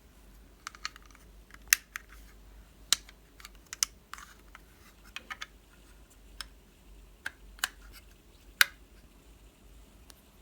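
Irregular sharp clicks and taps of small hard objects being handled during a toy unboxing, with a few louder clacks among quieter ticks.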